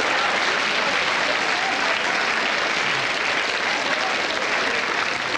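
Large audience applauding, fading near the end.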